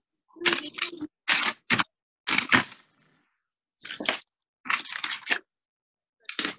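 Handling noise from cut glass pieces being moved about on a newspaper-covered glass base: several short rustling, scraping bursts with brief gaps between them.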